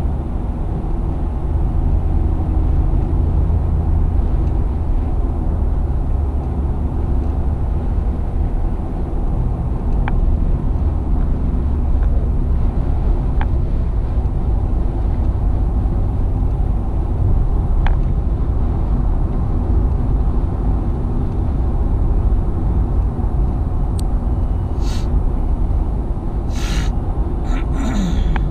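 Car interior noise at highway speed: a steady low rumble of tyres, road and engine heard inside the cabin. A few faint clicks occur midway, and several short sharp noises come near the end.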